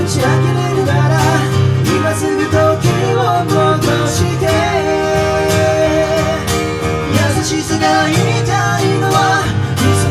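Live acoustic pop performance: strummed acoustic guitar with a gliding melody line carried over it.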